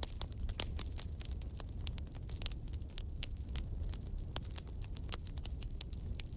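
Wood fire crackling: frequent irregular sharp pops and snaps over a steady low rumble of the burning.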